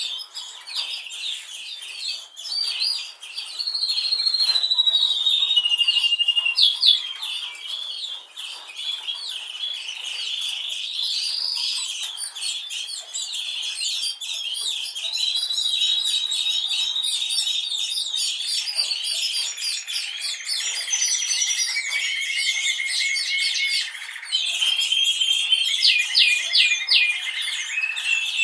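Canaries singing: a continuous stream of fast warbles and chirps, with rolling trills and long held whistled notes, some rising and some falling.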